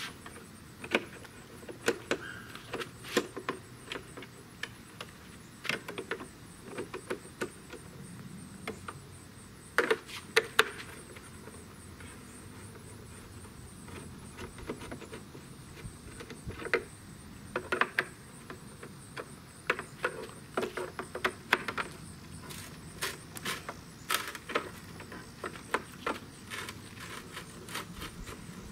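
Irregular light clicks and knocks from a 7mm nut driver backing screws out of the plastic housing of a Ford Super Duty power-telescoping towing mirror, the housing rattling as it is handled. The clicks come in louder clusters about ten seconds in and again near eighteen seconds.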